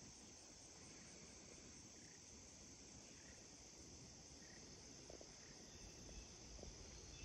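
Near silence: faint outdoor ambience with a steady high-pitched hiss, and some low rumble and small ticks from wind or handling on the microphone near the end.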